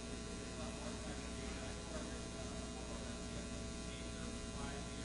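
Steady electrical mains hum over low room noise, with a faint, distant voice of an audience member asking a question away from the microphone.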